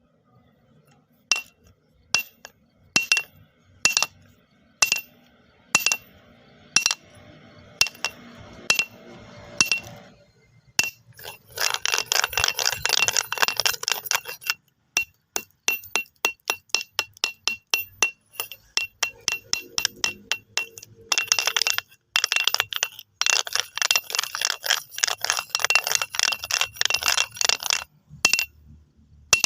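Stones knocking together with sharp clicks. At first they come singly, about one a second; about a third of the way in they turn to fast rattling clatter, in long runs broken by stretches of evenly spaced clicks.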